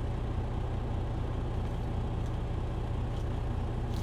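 Idling truck engine giving a steady low rumble, with a couple of faint light clicks near the end.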